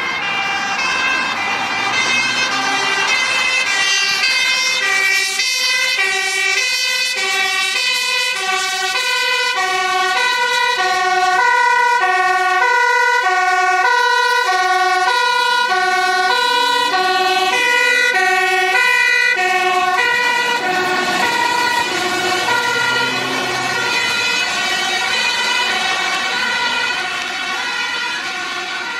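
Dutch fire engines passing with two-tone hi-lo sirens wailing, several sirens overlapping out of step, over truck engine and tyre noise. The sirens grow louder toward the middle and fade toward the end as the trucks pass.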